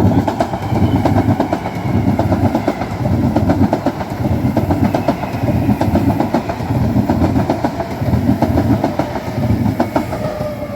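MTR electric train passing close by at speed, its wheels clattering over the rail joints in a steady beat of pulses about once a second. A faint high motor whine falls gently in pitch, and a lower whine falls near the end.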